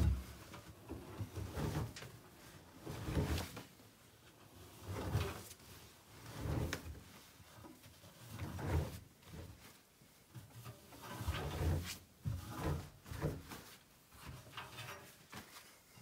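Laundry tumbling in a rotating appliance drum: a swell of soft thuds and rattles about every one and a half to two seconds.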